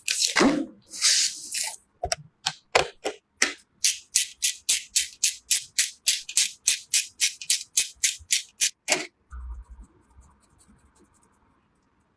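A few loud rustling handling noises, then a quick, even run of short scratchy strokes, about five a second, that stops about nine seconds in.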